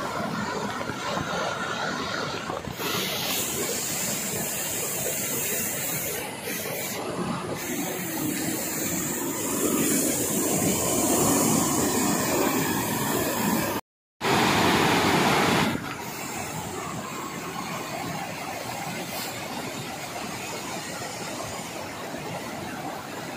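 Fast, muddy river water rushing over rock rapids, a steady rushing noise. It grows louder for several seconds in the middle, breaks off to silence for an instant about 14 seconds in, and settles back to a lower steady rush after about 16 seconds.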